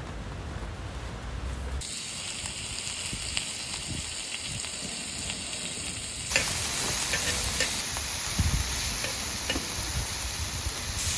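Steady high hiss with scattered small crackles and pops. It starts about two seconds in and grows louder about six seconds in.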